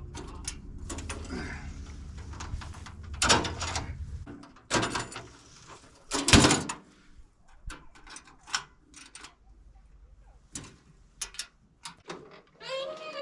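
Band sawmill's engine running steadily, then cutting off about four seconds in. A series of sharp metallic clanks and knocks follows from handling the mill and log, the loudest three a little apart early on. A brief pitched squeal comes near the end.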